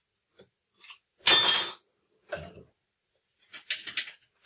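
Metal handling sounds at a workbench: a loud, short metallic clatter with some ringing about a second in, a duller knock a second later, then a few quick light clanks near the end as the steel handle of a bench vise is worked. No welding arc is heard.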